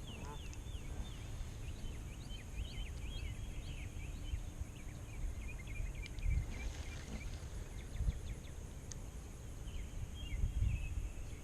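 Birds calling in rapid runs of short chirps, busiest in the first few seconds and again near the end, over a low rumble of wind on the microphone.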